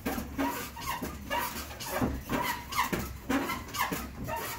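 Elliptical trainer in use: a rhythmic squeak and knock about twice a second, in time with the strides, over a steady low hum.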